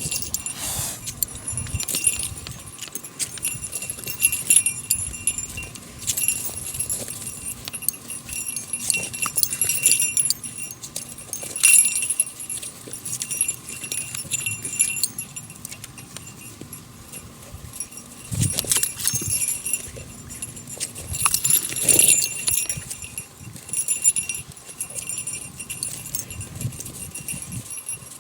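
A dog's collar tags jingling in short bursts every second or two as the dog moves about.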